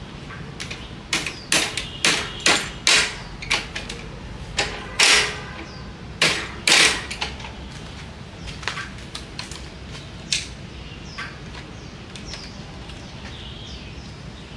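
A run of sharp clicks and short rasping bursts over the first seven seconds or so, then a few scattered clicks, with small birds chirping in short falling notes throughout. No engine is running.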